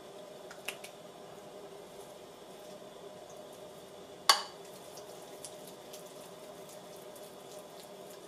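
Kitchen dish or utensil clatter: one sharp clink with a short ring about four seconds in, and a couple of faint ticks near the start, over a steady low hum.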